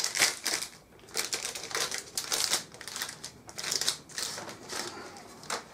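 Irregular crinkling and rustling while the motherboard's thin metal I/O shield is handled.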